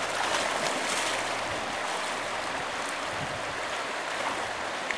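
Shallow river running over riffles: a steady rush of flowing water.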